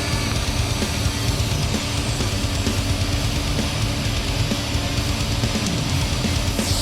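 Heavy metal music with electric guitar and drums.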